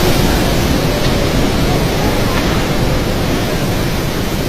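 Strong wind and heavy rain: a loud, steady rushing noise, heaviest in the low end, easing off slightly toward the end.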